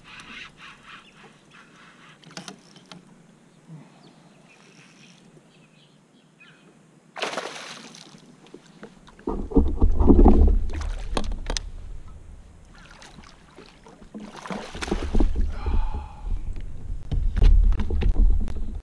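A hooked bass splashing at the surface beside a paddleboard. There is a sharp splash about seven seconds in, then heavier thrashing with knocks and a deep rumble twice as the fish is brought in to the board.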